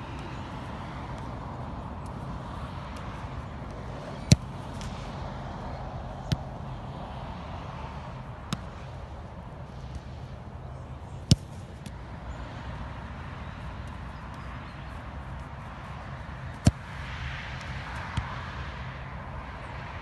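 Soccer ball being kicked and touched: six sharp single thumps at uneven intervals a couple of seconds apart, over steady outdoor background noise.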